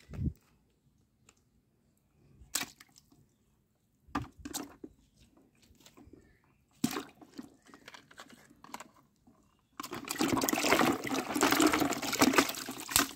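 A few light clicks and knocks of small plastic toy cars set down on stone paving, then about ten seconds in, a hand swishing and splashing through muddy water in a plastic tub for a few seconds.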